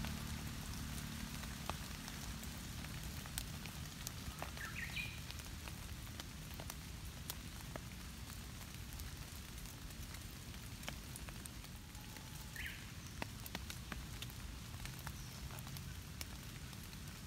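Light rain falling on leaves and wet ground, with scattered ticks of single drops. Two short high chirps come about five seconds in and again near thirteen seconds, and a faint low rumble fades away in the first few seconds.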